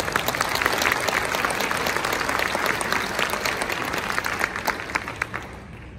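Audience applauding: many people clapping at once, dying away shortly before the end.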